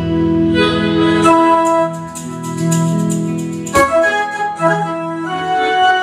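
Harmonica played into a microphone over an electronic keyboard: a slow melody of long held notes with organ-like keyboard chords underneath.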